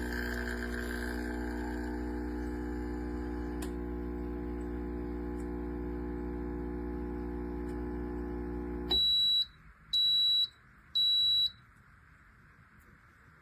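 Espresso machine's pump running with a steady hum, then cutting off suddenly; a few moments later the machine gives three high-pitched beeps about a second apart.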